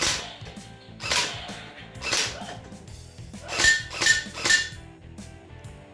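MK8 electric gel blaster firing single shots in semi-auto on its stock 7.4 V battery: six shots, three about a second apart, then three quicker ones about half a second apart, each of the last three with a brief ringing note.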